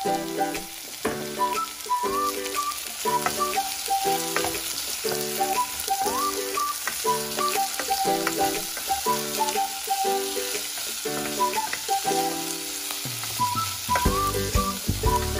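Sliced sausage and diced onion sizzling as they fry in a pot, stirred with a spatula, over background music made of a repeating pattern of notes.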